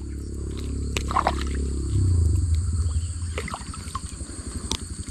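A low motor drone that swells about two seconds in and then settles into a fast, even low pulsing, with a steady high insect buzz above it and a few short clicks.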